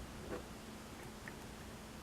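Faint, light clicks of a lock pick working the pin stack inside a pin-tumbler lock, one small tick about a third of a second in and a fainter one later.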